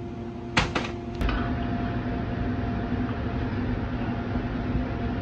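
A steady mechanical hum with a few clicks or knocks about half a second to a second in, after which the hum runs a little louder.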